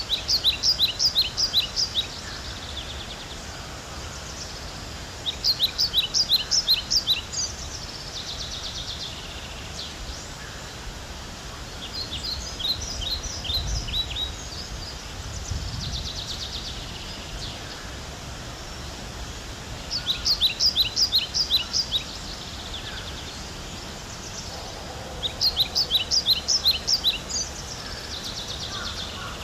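Small songbird singing: five phrases, each a quick run of about eight sharp, high notes lasting about two seconds, repeated every five to eight seconds, with softer high trills between them.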